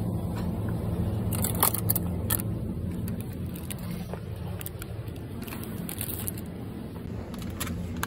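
Plastic food packaging being handled, with sharp crinkles and clicks, loudest about two seconds in, over a steady low rumble.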